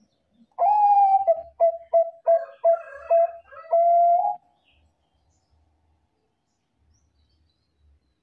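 A Bangkok-type zebra dove (perkutut bangkok) sings one cooing phrase: a long note, a quick run of about six short notes, then a long closing note, about four seconds in all.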